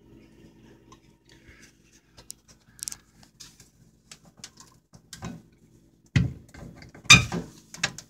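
A window frame being handled as someone tries to open it: faint clicks and rattles, then two loud knocks near the end.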